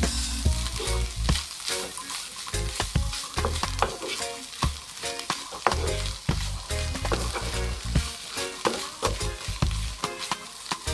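Flaked tuna with onion, garlic and tomatoes sizzling in a hot nonstick frying pan while a wooden spoon stirs it, with repeated scrapes and taps of the spoon against the pan.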